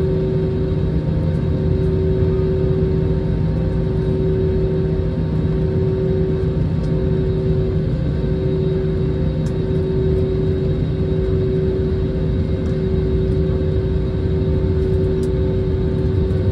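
Airliner cabin noise after landing: the jet engine under the wing runs steadily at low power, a constant deep rumble with a steady hum on top, as the plane rolls along on the ground.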